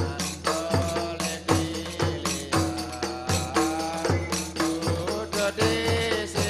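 Rodat music: hand-held frame drums beat a steady rhythm, with a heavy stroke about every three-quarters of a second, under a held, sliding melody.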